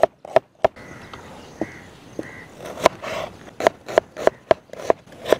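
Chef's knife slicing onions on a wooden cutting board. A few quick knocks, a pause of about two seconds, then steady chopping at about three strokes a second.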